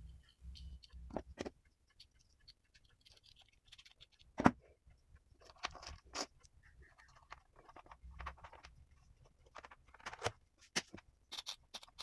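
Faint, scattered clicks and scrapes of a small plastic fridge relay and crocodile-clip test leads being handled on a bench. One sharper click comes about four and a half seconds in, and a quick run of clicks comes near the end.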